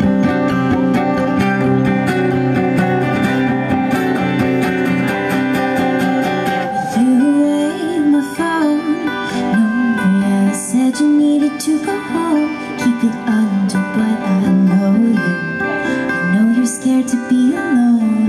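Live pop-folk band playing: acoustic guitars strummed in an instrumental intro, with a woman's lead vocal coming in about seven seconds in.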